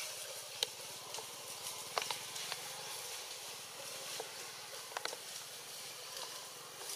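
Outdoor tree-canopy ambience: a steady high hiss with a few scattered light clicks and snaps.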